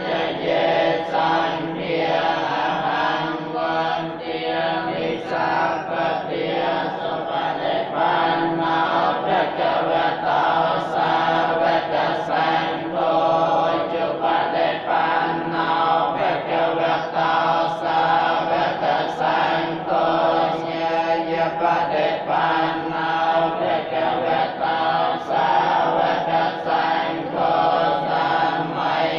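Theravada Buddhist monks chanting together in unison, a steady, unbroken recitation of many voices.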